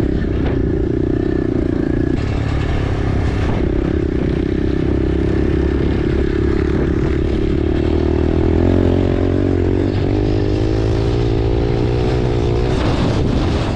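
Pit bike engine running close up under way, a steady drone whose note climbs a little in the second half as it speeds up. The engine note changes abruptly about two seconds in and again near the end.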